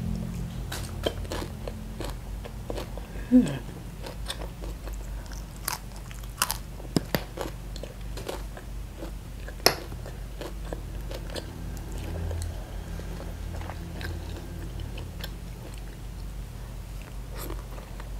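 Close-up chewing and biting of boiled shrimp and raw leafy greens, with scattered crisp crunches and short wet mouth clicks, over a low steady hum. A brief, louder sound with a falling pitch comes about three and a half seconds in.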